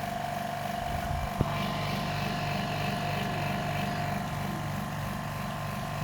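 Steady machine hum with a low pulsing of about four beats a second, and one sharp click about a second and a half in.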